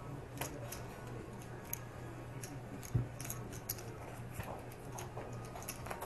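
Poker chips clicking and clacking as players handle their stacks at the table, a scatter of sharp little clicks, with one dull thump on the table about three seconds in.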